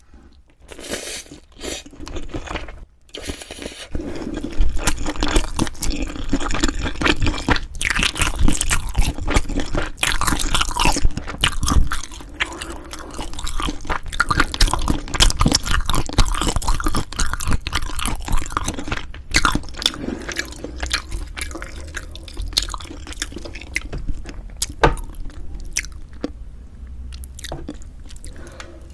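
Close-miked ASMR eating sounds of chewing and biting into a meal of beef rib meat and spicy mixed noodles, a dense run of small clicks and smacks. It is quieter for the first few seconds and thins out near the end.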